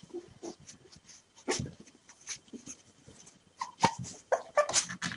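Three-day-old Rafeiro do Alentejo (Portuguese mastiff) puppies whimpering and squeaking in short cries, sparse at first and then coming quickly one after another in the second half. The puppies are hungry, waiting for their milk.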